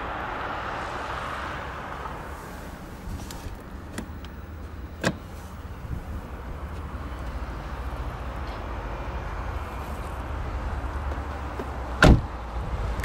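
Low steady rumble of wind on the microphone, a small click about five seconds in, and near the end a car's front door shut with a single solid thud.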